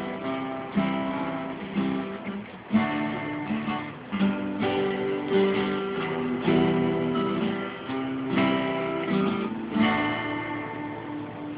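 Acoustic guitar strumming chords in a song's instrumental intro, with a fresh strum attack about every second.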